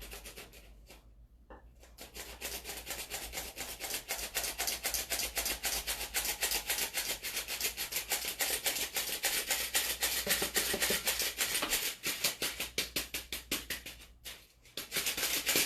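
A spoon stirring thick banana bread batter in a mixing bowl, working in dry flour with quick, even strokes of several scrapes a second. The stirring pauses briefly about a second in and again near the end.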